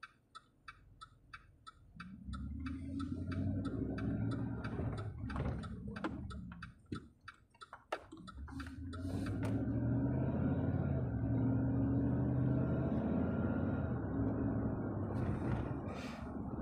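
A car's turn-signal indicator ticking steadily, about two to three clicks a second, heard inside the cabin during the first half. The car's engine and tyre noise rise as it pulls away, growing louder and steadier after about nine seconds.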